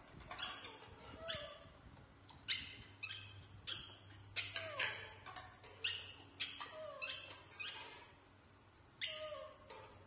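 Young macaques making a dozen or so short squeaky calls, one after another, many falling in pitch, with a short lull near the end.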